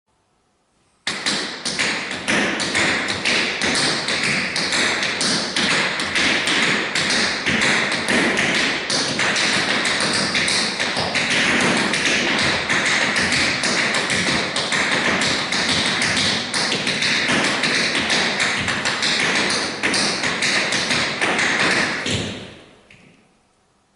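Tap shoes striking a wooden floor in a fast, dense, unbroken run of taps that starts sharply about a second in and fades out near the end.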